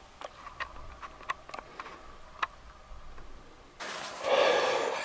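A string of faint, light clicks at uneven spacing. About four seconds in comes a loud, breathy rush of a man blowing out a heavy breath.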